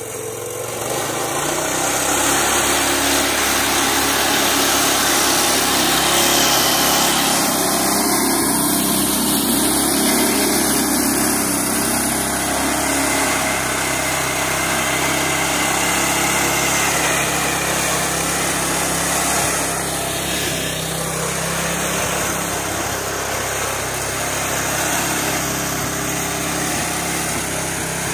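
Old Farmall tractor powered by a Harbor Freight Predator 212, a 212cc single-cylinder four-stroke engine, running under load as the tractor drives. The steady engine note builds up over the first couple of seconds.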